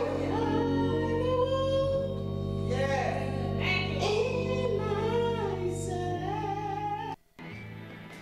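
A woman singing a slow gospel song with a wavering vibrato over sustained instrumental chords. About seven seconds in, the song cuts off abruptly, and quieter music follows.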